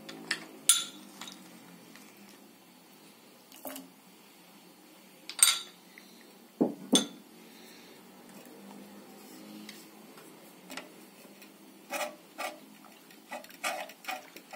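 Utensils clinking and knocking against a saucepan as chopped chocolate goes into warm milk. Near the end a wire whisk stirs it, giving a run of quick clicks against the pan.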